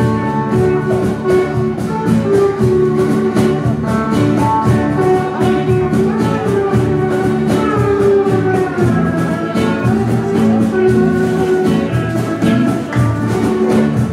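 Live band music for an upbeat dance song: guitars strummed in a steady beat under a gliding melody, with bass guitar and percussion.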